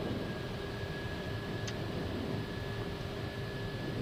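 Steady flight-deck noise of an Airbus A320neo in flight: an even rush of airflow and air-conditioning with a faint steady whine, and a single short click about a second and a half in.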